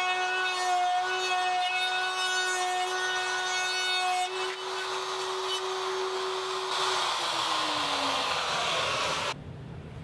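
Electric router with a plunge bit cutting into cedar, running with a steady high whine over the rasp of the cut. About seven seconds in, its pitch falls away as the motor spins down, and the sound cuts off abruptly near the end.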